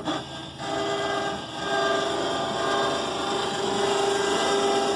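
Cheap Harbor Freight electric winch running with a steady motor whine, paying out cable as the loaded truck-bed slide rolls out of the van.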